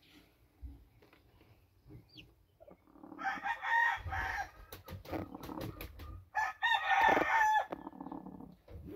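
Chicken calls: two long, loud, pitched calls about a second each, some three seconds apart. A scatter of sharp clicks and low knocks falls between them.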